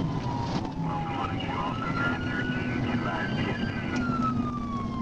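Police siren on a slow wail, falling in pitch, rising again about two seconds in and starting to fall near the end. It sounds over steady engine and road noise of the pursuing cruiser.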